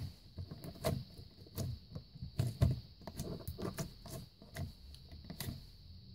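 Clear orange glitter slime being poked and pressed by fingers, giving irregular small clicks and soft sticky thuds.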